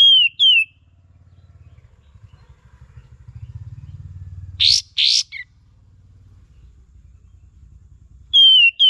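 Kapas tembak, a bulbul, calling. Short, loud, falling whistled notes come in pairs at the start and again near the end. About halfway through there are two harsh, raspy bursts and a short note. A faint low hum runs underneath.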